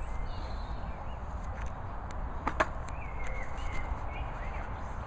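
Steady outdoor noise with a low rumble, broken by a single sharp knock about two and a half seconds in, with faint bird chirps just after it.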